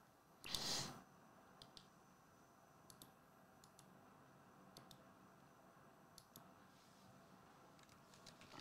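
Faint, scattered key clicks of a computer keyboard being typed on, with a short louder rustle about half a second in and a few quicker clicks near the end; otherwise near silence.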